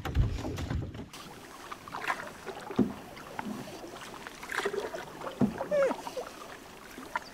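Canoe paddling on a calm river: paddle strokes in the water with a few light knocks against the canoe. This follows a second of low rumble that cuts off abruptly.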